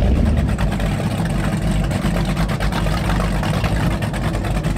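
Powerboat engine idling with a steady low rumble.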